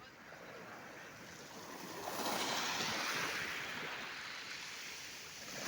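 Sea waves washing onto the shore: one wave surges in about two seconds in and slowly dies away, and another begins to rise near the end.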